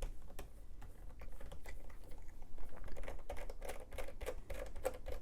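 A precision screwdriver turning out a small screw from a laptop's plastic underside: quick, irregular little clicks and scrapes, thickest around the middle.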